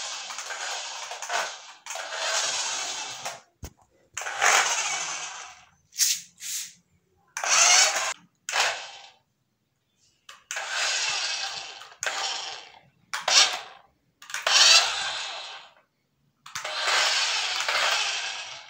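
Small electric motor and gears of a toy remote-control car whirring in short bursts, about a dozen, each half a second to two seconds long with brief silences between, as the car is driven back and forth.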